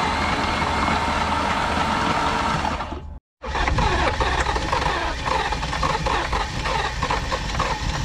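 BMW E38's V12 engine running rough with a rhythmic knocking after being hydrolocked by water in its cylinders; the owners conclude a connecting rod is bent. The sound drops out briefly about three seconds in, and the knocking is plainest after that.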